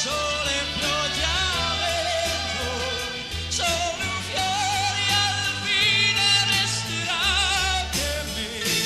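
A male pop singer singing with vibrato over a band accompaniment with a steady bass line.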